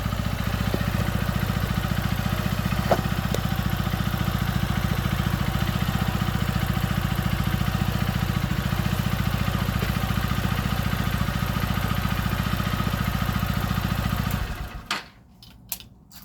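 2023 Honda XR150L's single-cylinder engine idling steadily, warmed up ahead of its oil change. About fourteen seconds in it is shut off and stops, followed by a few small clicks.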